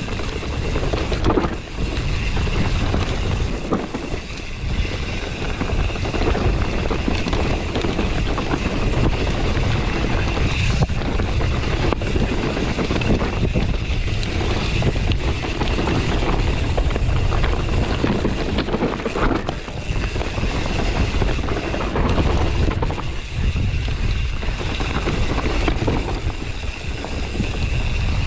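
Mountain bike rolling fast down a rocky dirt trail: a continuous rush of wind on the action camera's microphone, with the tyres grinding over loose stones and the bike knocking and rattling over bumps throughout.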